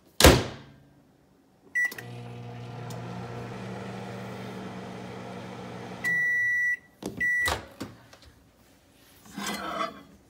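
Countertop microwave oven: the door shuts with a knock, a keypad beep sounds, and the oven runs with a steady hum for about four seconds. A long beep then marks the end of the cooking. Two short beeps with clicks follow as the door is opened, and a glass dish is handled on the turntable near the end.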